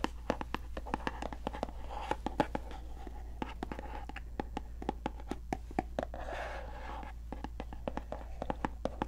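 Close, crisp tapping and scratching of hands on a small product box: many quick, irregular taps, with a couple of brief scratchy rubs.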